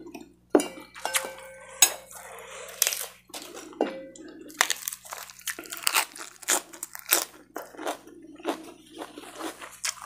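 Close-up eating sounds: a metal spoon clinking and scraping on a ceramic bowl in the first seconds, then crisp, wet crunching as raw lettuce leaves are bitten and chewed.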